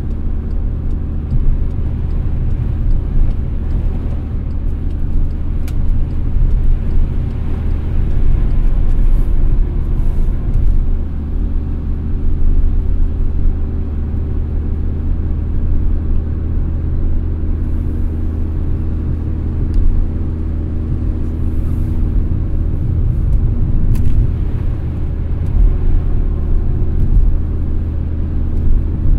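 Car driving at a steady pace: a continuous low engine and road rumble with a steady drone.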